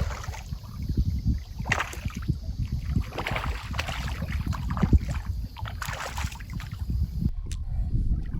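Wind rumbling on the microphone, with a few brief rushes of splashing water as a hooked fish is played in.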